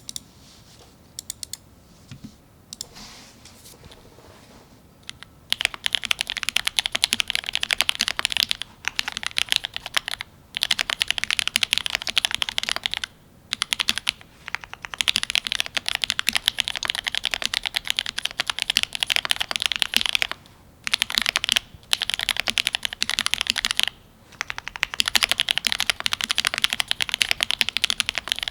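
Typing on a Cyberboard R3 mechanical keyboard with lubed Gateron Ink Black linear switches, GMK keycaps and an aluminium plate. A few single key presses come first, then fast continuous typing about five seconds in, broken by short pauses.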